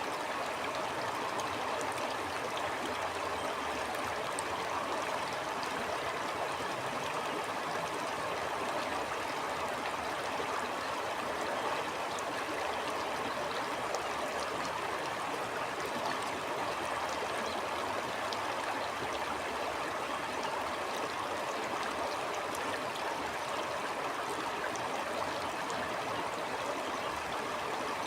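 Stream water flowing steadily over stones, an even rushing with small trickles and splashes.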